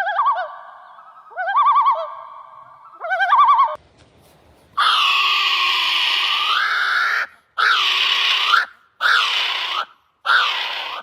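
Bird calls, apparently from two different birds. First come three short warbling, trilled calls over a steady whistle-like tone. After a brief pause there is one long harsh screech, then three shorter screeches.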